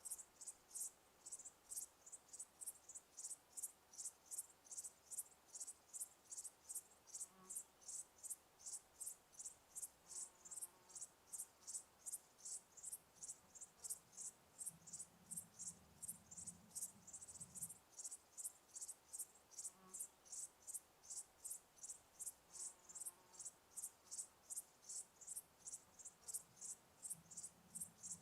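Cricket chirping in a steady, even rhythm of short high-pitched chirps, about three a second, with a faint low rumble for a couple of seconds past the middle.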